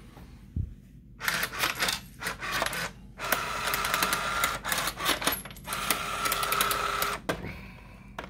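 Crane GPL 474 combo vending machine working through a vend: clattering and sharp clicks start about a second in, with a motor running steadily in two stretches of about one and a half seconds each, and all of it stops near the end. The vend goes through on the machine newly converted to MDB.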